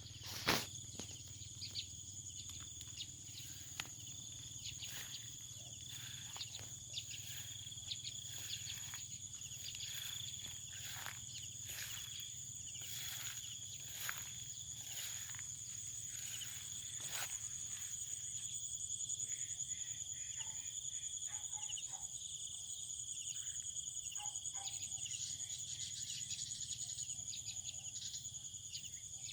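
A steady, high insect trill, such as field crickets, with many short chirps layered over it. A single sharp knock comes about half a second in.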